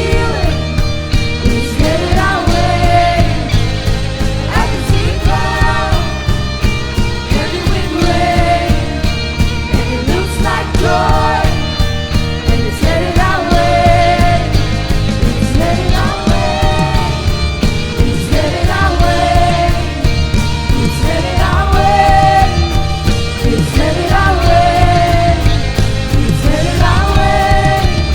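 Rock-style worship band music with singing over a steady beat, the melody repeating in short phrases.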